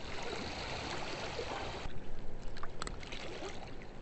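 Steady rush of water from the river spillway, which drops off sharply about halfway through, followed by a few light clicks.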